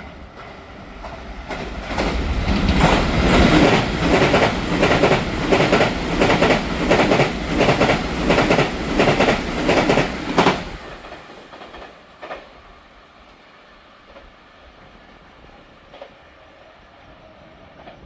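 TRA 900-series electric multiple unit passing at speed, its wheels giving a long run of loud, evenly spaced clacks as they strike a rail joint's fishplates. The sound builds over the first couple of seconds and dies away about 11 seconds in, with one last clack shortly after.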